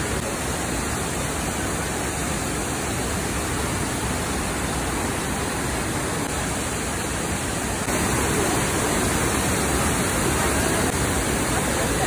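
Waterfall cascades rushing over rocks into a river pool: a steady roar of water that gets a little louder about eight seconds in.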